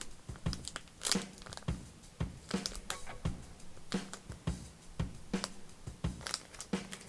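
Packaging crinkling and rustling as it is handled, with scattered small clicks, over faint background music with a steady beat.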